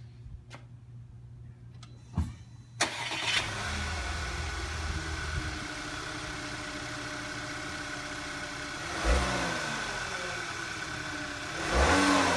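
Car engine of a 2016 VW Tiguan with a Tornado Air intake insert fitted, started about three seconds in and idling steadily. It is briefly revved twice, once near the middle and again near the end.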